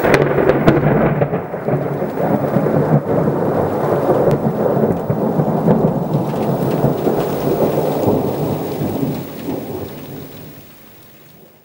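Thunder rumbling over rain, starting suddenly and fading out near the end.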